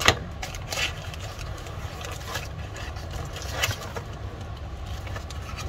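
Handling noises of camera packaging and small parts: a few sharp clicks and rustles, the loudest right at the start and others just under a second in and near the four-second mark, over a steady low hum.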